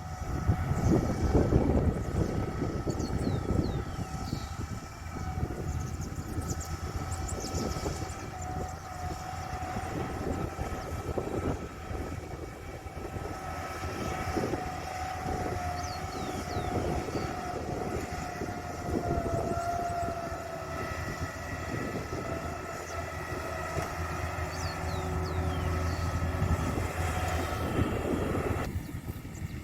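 Rice combine harvester running steadily: a low engine rumble with a steady mechanical whine that wavers slightly in pitch. It cuts abruptly to a quieter sound near the end.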